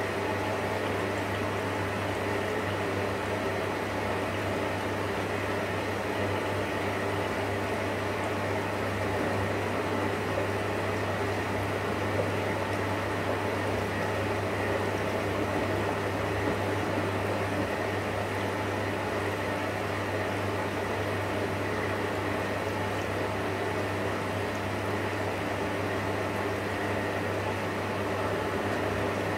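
Electrolux EWF 16589 W front-loading washing machine running its drum with laundry and water inside: steady sloshing and churning of water over a constant low motor hum.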